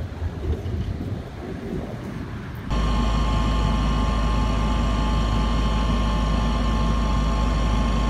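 Wind rumbling on the microphone, then about three seconds in an abrupt change to a steady aircraft cabin drone: a deep, even hum with several high, steady engine whines over it.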